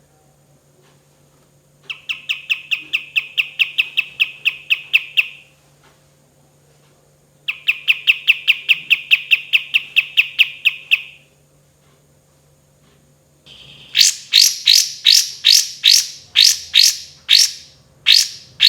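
Kapas tembak songbird singing: two rapid, even trills of about five notes a second, each lasting three to four seconds, then a louder run of sharp, downward-slurred whistled notes at about three a second near the end.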